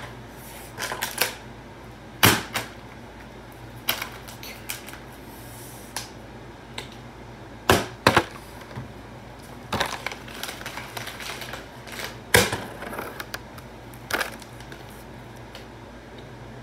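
Plastic water bottle being flipped and knocking down onto a tile floor again and again, a series of sharp clacks at irregular intervals.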